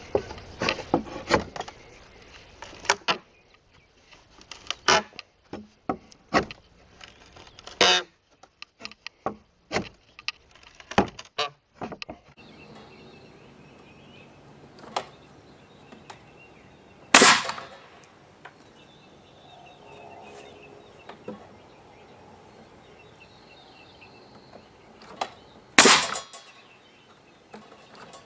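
Wooden picket being pried off a gate with hand tools: a quick run of sharp taps, knocks and cracks for about the first twelve seconds, then two single loud blows far apart.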